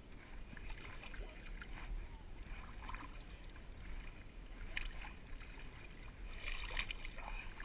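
Shallow water sloshing and splashing as a seine net is hauled through it by people wading, with a cluster of sharper splashes near the end.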